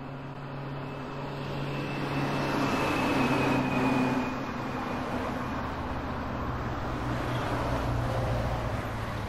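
Steady engine-like noise with a low hum. It grows louder over the first few seconds, holds, then begins to fade near the end, as of a vehicle passing.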